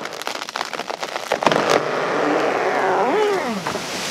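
A huge cottonwood tree falling after being felled: the trunk cracks and snaps several times, then a swelling rush of leaves and branches as the crown sweeps down, with creaking of the wood.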